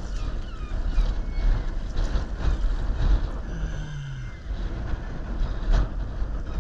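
Wind buffeting the microphone over water lapping and splashing against a sea kayak's hull, with a few short splashes. About three and a half seconds in, a brief low tone falls in pitch.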